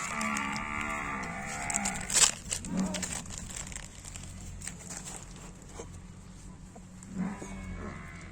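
A long, drawn-out animal call that falls in pitch as it ends, followed by a sharp click, with a second, shorter call near the end.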